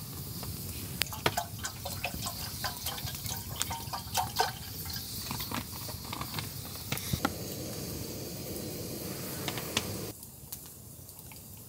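Water poured from a plastic bottle into a cooking pot, a steady splashing pour that stops about ten seconds in. Scattered sharp clicks come before it.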